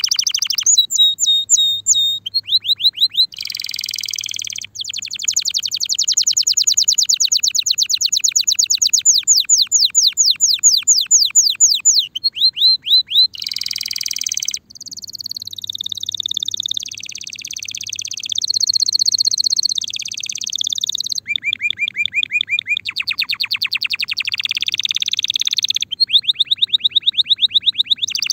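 Timbrado canary singing a continuous song of rapid trills and rolls, the song of a bird ready to breed. Each phrase is a fast run of repeated notes that switches to a new phrase every one to four seconds. Some runs rise or fall in pitch.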